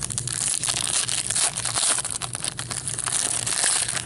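A hockey card pack's wrapper being torn open and crinkled by gloved hands: a continuous crackle with many small sharp crinkles.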